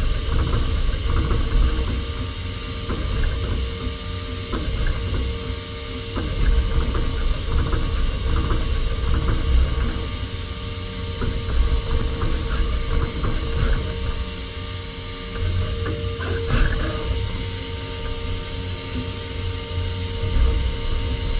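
Five-axis CNC machining centre running while milling a small aluminium engine block: a steady whine over a low rumble, with a short knock about three-quarters of the way through.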